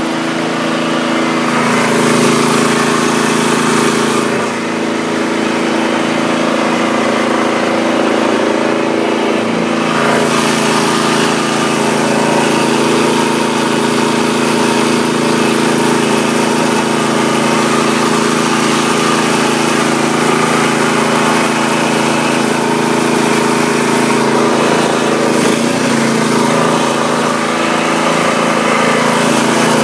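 A mud boat's outboard mud motor running steadily under way, its engine note holding nearly constant.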